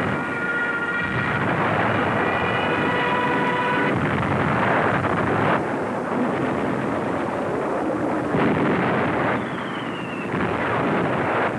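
Loud battle noise of engines and blasts, with sharp bangs about five and a half and eight and a half seconds in and a short falling whistle near the end.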